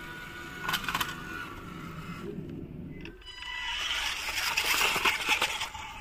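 Small electric RC car motor and gears whining while the tyres crunch over loose gravel, with a few sharp clicks of stones. A short drop about two and a half seconds in gives way to a louder stretch of hissing and crackling gravel.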